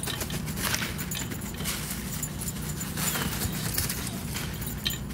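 Small dog running and bouncing on a trampoline: its paws strike the mat in quick, irregular taps and rattles.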